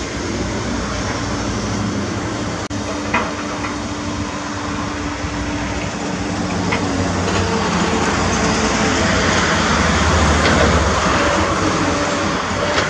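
Komatsu PC210 hydraulic excavator's diesel engine running steadily at a demolition site, with a few sharp knocks of rubble. The noise grows louder and denser from about eight seconds in.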